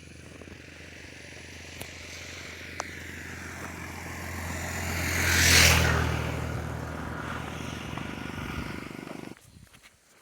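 A motor vehicle approaching and passing close by: its engine hum and road noise grow louder, peak about halfway through, then fade and cut off sharply near the end.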